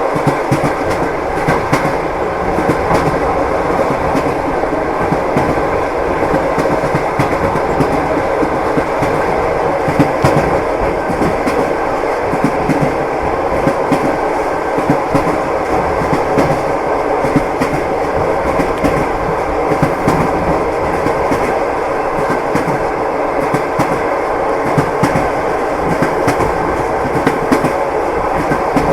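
Train wheels knocking over the rail joints with a steady clickety-clack, over the continuous rumble of a moving railway carriage.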